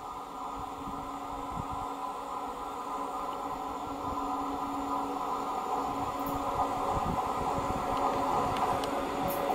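Two coupled PKP class EU07 electric locomotives approaching, their steady electric hum growing louder as they draw near, with scattered low thumps.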